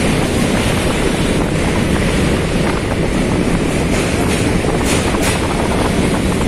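Train running across a steel truss bridge, heard from on board at an open window or door: a loud, steady noise of wheels on the rails mixed with wind buffeting the microphone.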